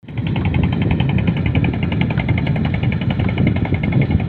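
Small engine of a motorised raft boat running steadily, with a fast, even beat.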